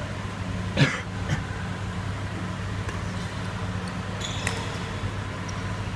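Badminton shuttlecock hit by a racket during a doubles rally: one sharp hit about a second in and a softer one just after, with a few lighter clicks around four seconds in. A steady low hum runs underneath.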